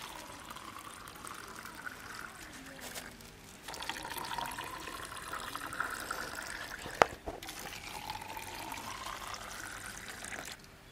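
Orange-flavour jelly mixture poured in a thin stream into clear plastic cups, the trickle rising in pitch as a cup fills. The pouring breaks off briefly about three seconds in. A single sharp click about seven seconds in is the loudest sound.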